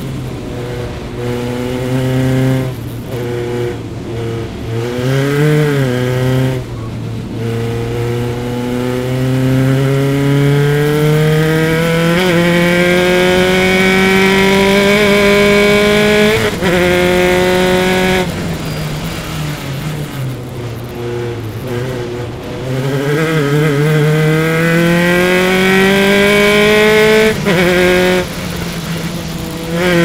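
Single-seater formula race car engine heard onboard at racing speed. Early on the engine note falls and wavers as the car slows for a corner, then it climbs steadily in pitch under full throttle, broken a few times by short drops as it shifts up.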